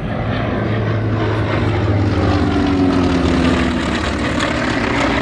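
A North American T-28 Trojan's nine-cylinder radial engine droning loudly as the aircraft flies its display, the engine note gliding lower about halfway through.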